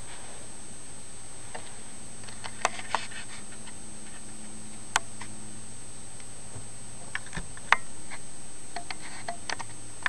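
About ten short, sharp clicks and taps, scattered irregularly over a steady hum with a faint high-pitched whine.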